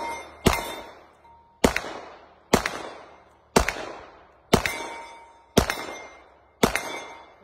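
Handgun fired seven times in a steady string, about one shot a second, each shot trailing off in echo. A short metallic ring follows several of the shots as the bullets strike steel targets.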